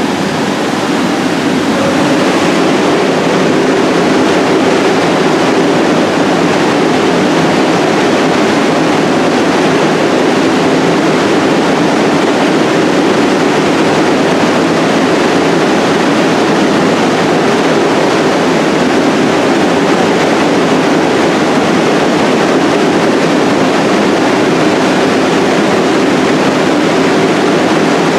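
Steady, loud rushing noise with a low hum from a 1 train of R62A subway cars in an underground station.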